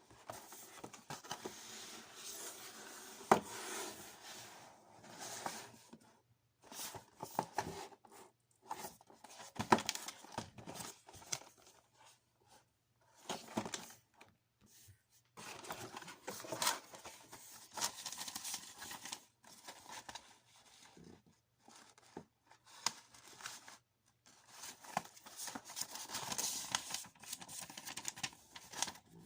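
Close handling sounds of an all-metal airsoft pistol and its wrapping: stretches of rustling, crinkling and scraping broken by a few sharp clicks and knocks, with short pauses between.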